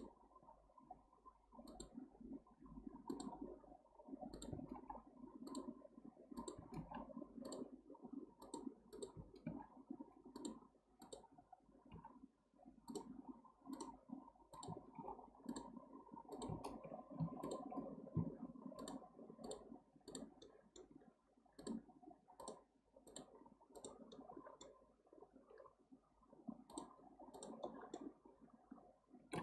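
Clicking of a computer mouse and keyboard keys at an irregular pace, roughly one to two clicks a second, faint, over low background noise.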